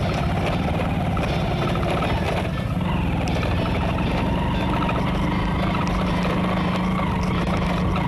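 Motorcycle engine running steadily under way, with road noise.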